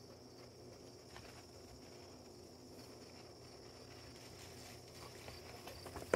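Quiet background: a steady high-pitched hum with faint scattered scuffs and taps, and one sharp click at the very end.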